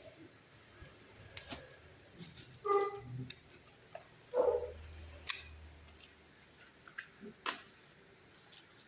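Scattered light clicks and taps from objects being handled during an unboxing, with two short pitched sounds about three and four and a half seconds in.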